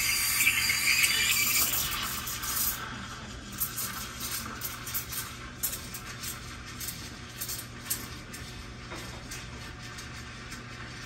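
A sudden loud hiss for about three seconds, then a run of light clinks and rattles of kitchen utensils against cups or glassware.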